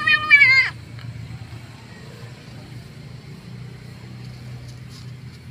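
Kitten meowing once, a short, high, wavering cry at the start, over a steady low hum of road traffic.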